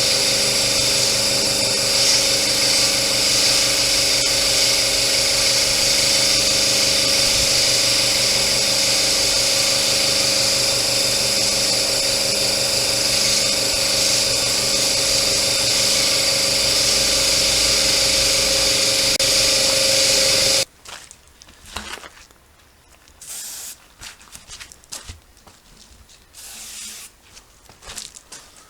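A small motor-driven machine running steadily with a constant hum and hiss, cutting off suddenly about 20 seconds in. Faint handling and rustling noises follow.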